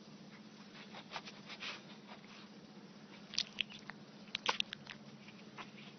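Small puppy making faint smacking and clicking mouth sounds, chewing or licking, in two scattered clusters, about a second in and again past the middle. A steady low hum runs underneath.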